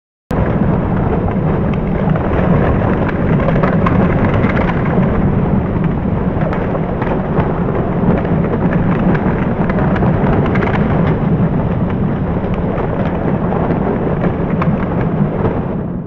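Large open fire of burning debris and cardboard: a steady, loud, rumbling roar with scattered small crackles and pops.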